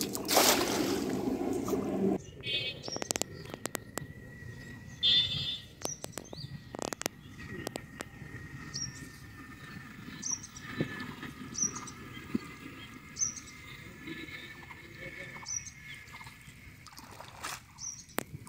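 A cast net splashing down onto pond water about a second in, then scattered clicks and small splashes as the wet net is hauled back by its rope. In the second half a small bird chirps again and again, about once every second and a half.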